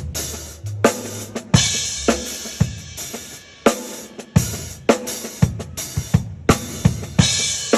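Drum kit played live during a sound check: kick and snare hits in a steady beat about twice a second, with crashing cymbals ringing over them and a few low bass notes underneath.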